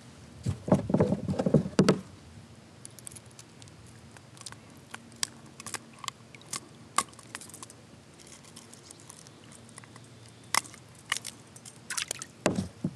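Unhooking a northern pike by hand: a burst of knocking and rattling about half a second in, then scattered sharp clicks of metal pliers and hooks on the lure, and another clattering burst near the end.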